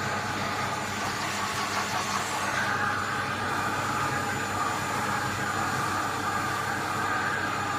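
Vacuum cleaner running steadily while it is used to brush a cat's fur; its whine shifts a little about three seconds in.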